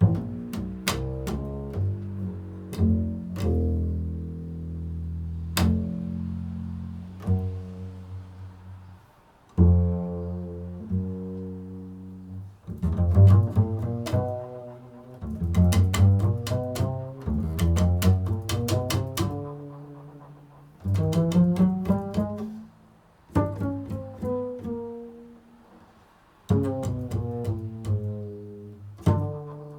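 Improvised solo instrumental music in a low register: notes struck sharply and left to ring, played in short phrases with brief pauses between them, built on the musical interval of a second.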